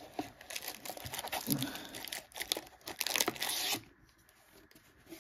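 Plastic wrapping and cardboard packaging crinkling and rustling as items are pulled out of a box, in quick irregular crackles that die down near the end.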